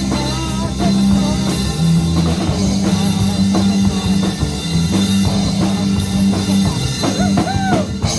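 Rock band playing live: drum kit and bass carry a steady beat under bending guitar lines.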